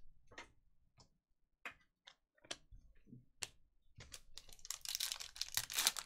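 A few separate sharp clicks of trading cards being handled and set down, then, from about four seconds in, the crinkling of a foil Panini Select card pack being torn open, louder toward the end.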